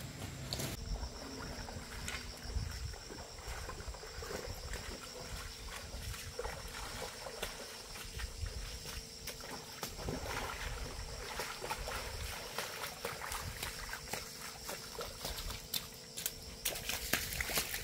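Footsteps splashing as someone wades through a shallow rocky stream, the splashing denser and louder near the end. A steady high-pitched insect buzz runs underneath.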